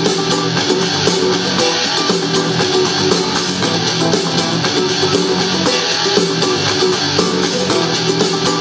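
Guitar-led music playing through a JBL Flip 2 portable Bluetooth speaker.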